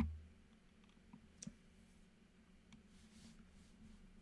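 A short low thump at the start, then a few faint clicks as presentation slides are clicked forward, over a quiet room with a low steady hum.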